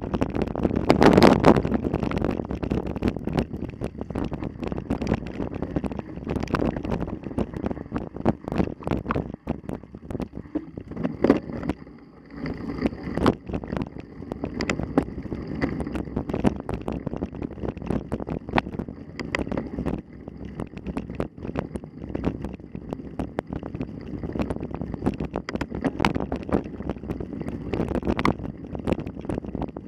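Wind buffeting the microphone over the rattling and knocking of a mountain bike ridden fast over rough ground, loudest about a second in.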